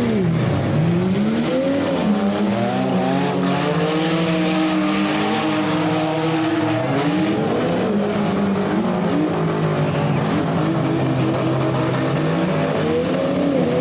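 Several demolition derby cars' engines revving up and dropping back at once, their pitches rising and falling over one another.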